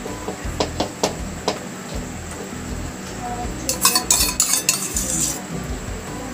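Metal knife clinking and scraping against a frying pan while spreading tomato sauce over a roti pizza. A few light clicks come in the first second and a half, then a longer run of scrapes and clinks around the middle.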